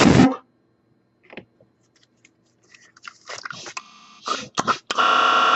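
Close-up chewing of a mouthful of several sticks of gum at once: after a quiet stretch come wet clicks and smacks. Near the end there is a loud, steady buzzing tone lasting about half a second.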